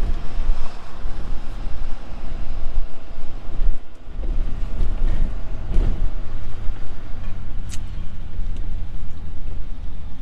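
Steady low rumble of a vehicle driving slowly, heard from inside the cabin, with road and wind noise. A single sharp click sounds about three-quarters of the way through.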